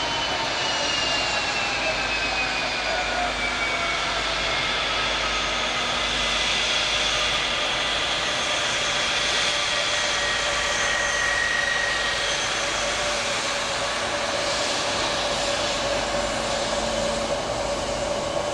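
Kawasaki P-1's four turbofan jet engines running with a steady roar and whine, one whistling tone gliding slowly down in the first few seconds.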